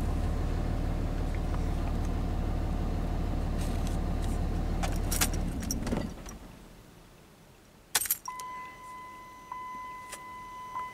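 A 2005 Dodge Ram 2500's 5.9-litre Cummins inline-six diesel idles, heard from inside the cab, then is switched off about six seconds in and runs down to quiet while the stored codes are being cleared. Keys jingle, a sharp click comes about two seconds later, and a steady electronic beep tone starts right after and holds.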